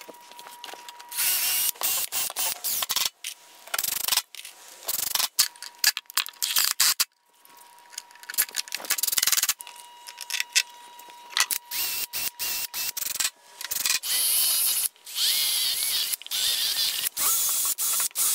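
Cordless drill running in short bursts into pine boards, mixed with ratcheting clicks, with abrupt starts and stops throughout.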